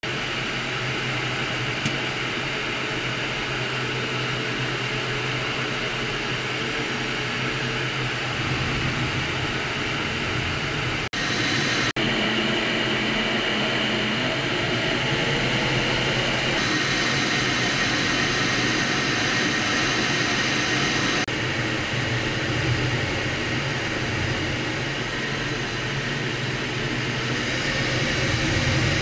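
Steady jet noise inside a T-38 Talon's cockpit in flight: the rush of air around the canopy with a steady whine from its twin J85 turbojets. The sound cuts out twice, briefly, a little over a third of the way in.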